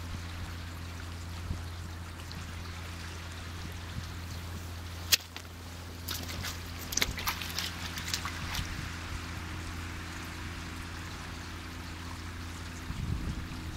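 Small waves washing and lapping over a seaweed-covered rock ledge, a steady hiss of moving water over a constant low hum. A sharp click comes about five seconds in, followed by a scatter of lighter clicks over the next few seconds.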